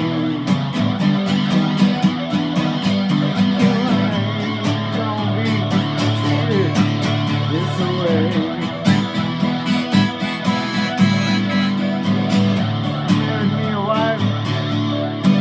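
Electric guitar played through a small Vox amp with a wah-wah pedal: held chords with wavering, sweeping notes over them.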